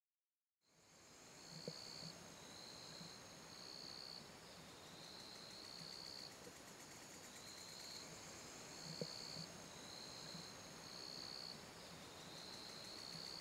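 Faint night-time insect chorus: a high trill repeating in pulses of about half a second to a second, over a steady higher insect hum, with a couple of faint clicks.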